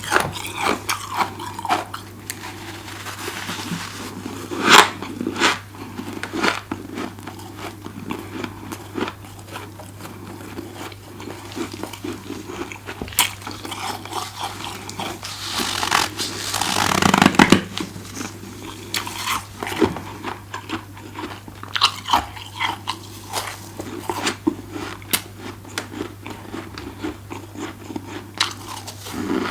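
Close-miked crunching and chewing of deep-freezer frost, bite after bite of sharp crisp crunches, with one longer, louder crunching burst about halfway through.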